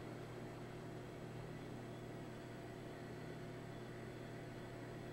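Room tone: a steady low hiss with a faint electrical hum and a thin high whine, with no distinct event.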